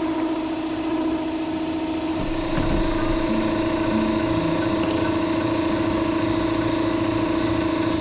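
Campbell Hausfeld Iron Force cast-iron air compressor running: a steady motor-and-pump hum, with a deeper low rumble joining about two seconds in.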